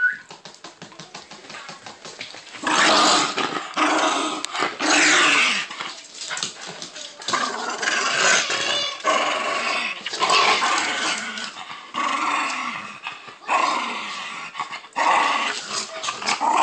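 A dog growling in play while tugging on a chew toy: a string of rough growls, each about half a second to a second and a half long, starting about three seconds in. Before them comes a fast run of light clicks.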